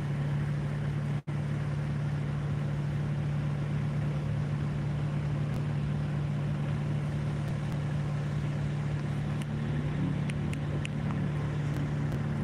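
A car engine runs at a low, even idle close by as cars creep past in a slow queue, giving a steady drone with no revving. The sound cuts out for an instant about a second in.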